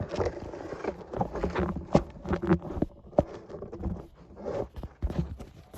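Irregular clicks, knocks and rattles of metal support poles and plastic connector pieces being handled and fitted together.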